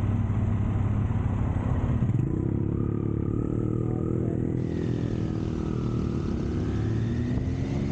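Motorcycle riding along, its engine running steadily with road noise; about two seconds in, a higher engine note joins in.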